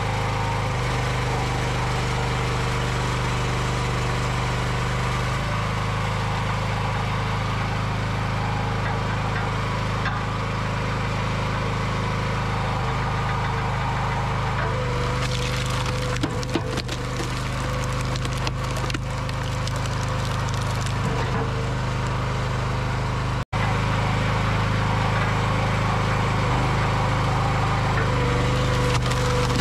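Engine-driven hydraulic log splitter running steadily, its note shifting a few times, as logs are pushed through the splitting wedge. The wood cracks and splinters, most busily about halfway through.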